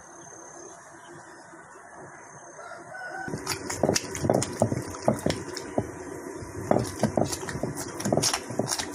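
A stone wet grinder (aattukal) grinding wet masala paste by hand. The heavy round stone pestle knocks and scrapes in the stone mortar, with irregular clacks several times a second, starting about three seconds in after a stretch of quiet outdoor ambience.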